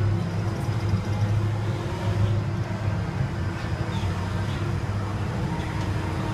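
Steady low hum of machinery, with a constant deep drone and a few fainter higher tones held throughout.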